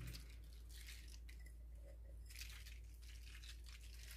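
Faint, scattered rustles and light rattling as grated Parmesan Romano cheese is shaken from a jar and sprinkled over a baking dish, over a low steady hum.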